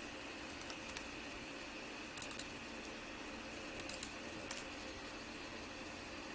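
Computer keyboard keystrokes in a few short, irregular clusters of clicks, over a faint steady hum.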